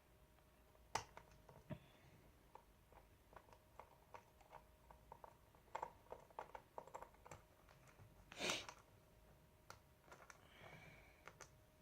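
Faint scattered clicks and ticks of a small screwdriver and fingers working the screws of a laptop's plastic back plate, with one louder rustle or scrape about eight and a half seconds in.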